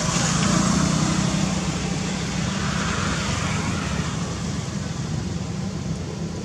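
Steady outdoor background rumble and hiss: a low hum under an even wash of noise, easing slightly toward the end.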